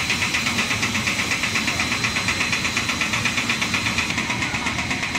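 Wheat-chip snack extrusion line running: steady machinery noise with a rapid, even pulse and a thin steady high whine.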